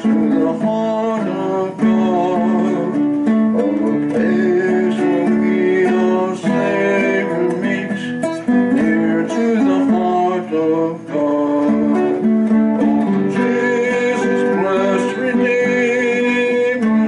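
Acoustic guitar music, strummed and plucked, playing a worship song through a stretch without sung words.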